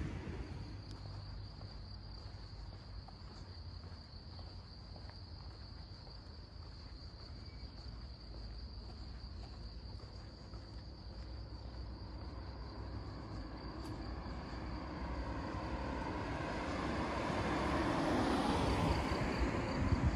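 A steady, high, continuous trill of insects in the meadow grass over a low outdoor rumble. In the last few seconds a car comes up the road, its tyre and engine noise growing louder.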